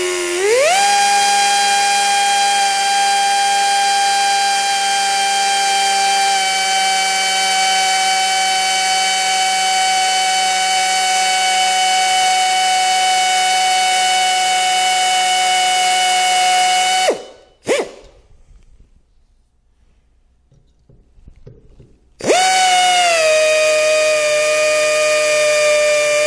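Compact right-angle electric drill spinning up to a steady whine as a small needle-tip bit drills a pilot hole into a broken steel exhaust manifold stud. It stops about seventeen seconds in, is quiet for a few seconds, then starts up again near the end.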